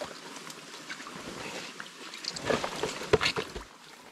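Wet mud and muddy water sloshing and squelching as a bogged Suzuki DR650 motorcycle is dragged up out of a mud hole by hand. A cluster of louder splashes and knocks comes from about two and a half to three and a half seconds in.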